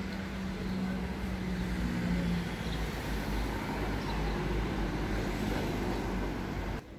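City street traffic: cars and a van passing, with a steady engine hum that fades out about two and a half seconds in. The sound drops off abruptly just before the end.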